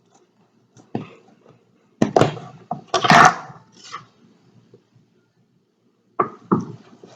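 Dough being divided into four pieces on a work surface: a scatter of knocks and thuds, the loudest and longest about three seconds in, and two more strikes near the end.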